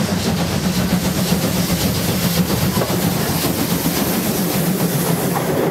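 German class 52 steam locomotive, No. 52 8038, working a train along the line: a steady, heavy rumble of engine and wheels on the rails, with hiss above it.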